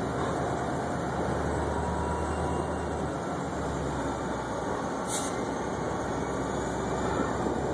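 Freight train's steady low rumble, with a short high squeak about five seconds in.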